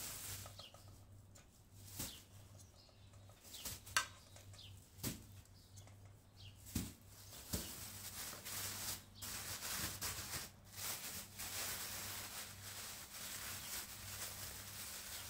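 Metal tongs clicking against a steel colander of cut potatoes, a few separate clicks. About eight seconds in, a thin plastic bag starts crinkling and rustling steadily as potato pieces are packed into it.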